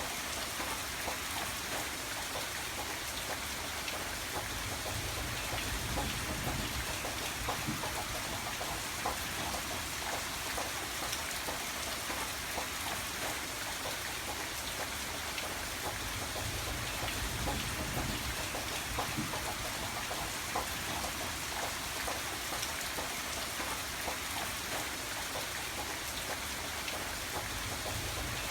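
Steady rain falling, the individual drops heard as many small ticks over a constant hiss, with a low rumble swelling briefly a few times.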